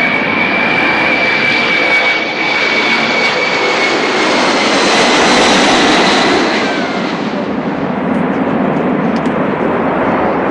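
Boeing 747-300 jet engines, loud and steady, with a thin high whine over the roar. About seven seconds in the whine fades and the sound turns duller as the jet draws away.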